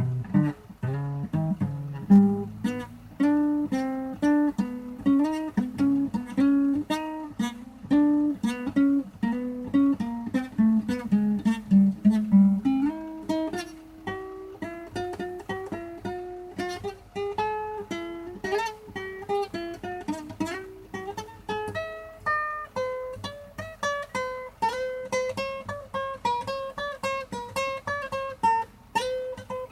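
Solo improvised blues played on a plucked string instrument: a steady run of single picked notes, each dying away. It stays low for the first half, then moves up into a higher register about halfway through.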